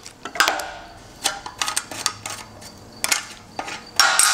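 Irregular metallic clicks and clinks of a wrench, bolt and socket being handled on a steel plate as the bolt is backed off a freshly set rivnut, with a louder clatter near the end.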